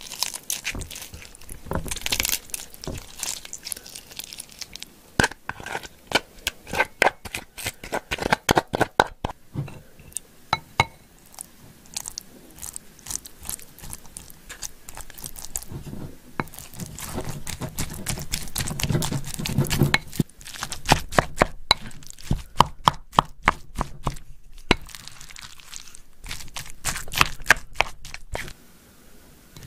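Close, wet squelching and sticky clicking of soy-marinated crab roe and innards being squeezed out over rice and stirred into it with a spoon in a ceramic bowl, with many small clicks and taps.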